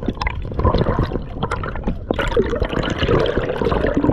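Seawater splashing and gurgling around a spearfisher in the water, full of short sharp splashes.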